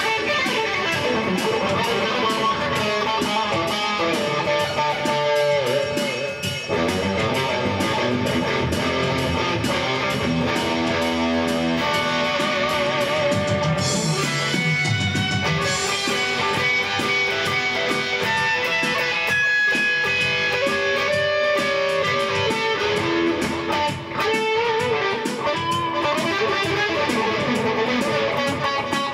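Rock music led by electric guitar, strummed and picked, playing continuously.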